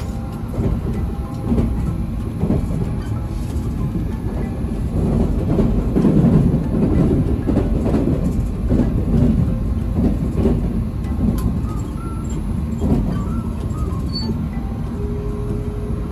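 Running noise of a train heard from inside the carriage: a steady low rumble that swells for a few seconds in the middle.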